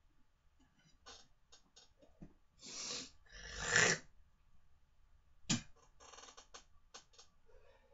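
A person breathing out hard twice, the second breath longer and louder. A sharp click follows about a second and a half later, then a few faint crackles.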